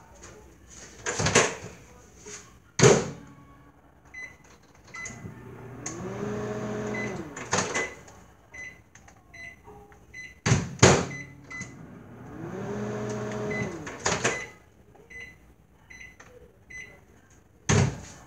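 Kitchen knocks and bangs, several loud sudden ones, with two short spells of an appliance humming whose pitch rises and falls, and faint regular high ticks.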